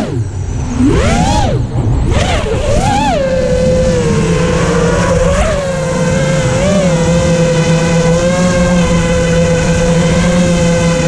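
FPV quadcopter's electric motors and propellers whining. For the first three seconds the pitch swoops up and down several times with the throttle, then it settles into one steady whine as the quad comes down low near the pilot.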